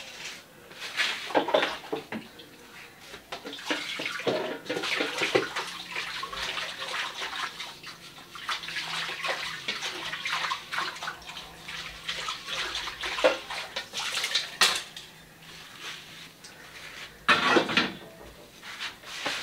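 A wok being washed at a sink: running water and scrubbing, with the metal pan clattering against the sink and a couple of louder knocks late on.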